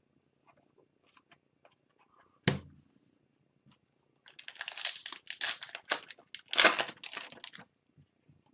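A foil hockey card pack wrapper being torn open and crinkled, a dense crackling tear lasting about three seconds. Before it, about two and a half seconds in, a single sharp knock on the table.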